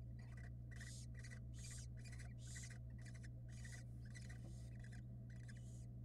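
Barn owls in a nest box giving short rasping hisses, about three a second, over a steady low electrical hum.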